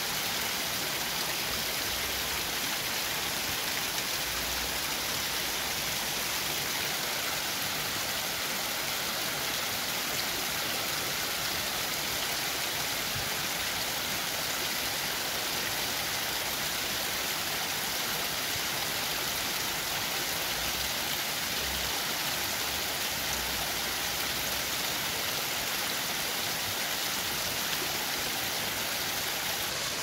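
Creek water running and splashing over small cascades between flat rock ledges: a steady, even rushing hiss.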